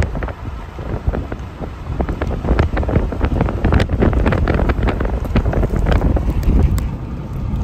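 Heavy wind buffeting the microphone of a moving vehicle: a loud low rumble with irregular crackles.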